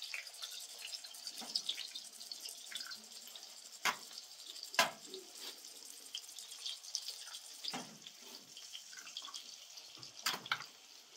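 Water trickling and splashing, with drips and a few louder sudden sounds spread through it.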